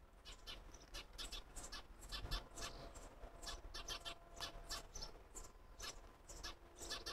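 Sparrows chirping at a nest box: many short, high chirps in quick succession, getting busier after about a second.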